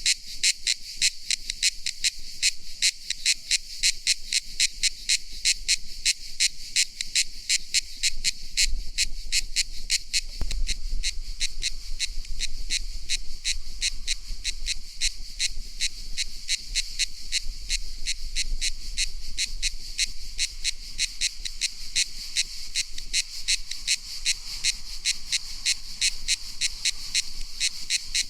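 Cicada calling: a shrill, high-pitched pulsing buzz, its pulses coming rapidly and evenly without a break.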